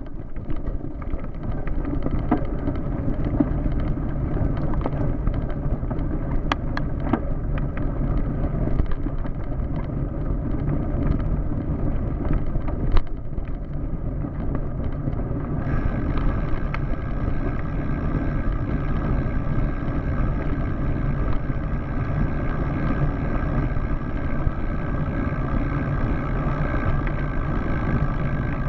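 Bicycle tyres rolling over a gravel track, a steady low rumble with wind on the microphone and a few sharp knocks, the loudest about 13 seconds in. A steady hum joins the rumble about halfway through.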